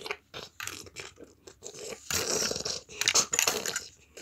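Plastic Lego pieces clicking and rattling as the figures are grabbed and moved, with two rough crunching scrapes about two and three seconds in.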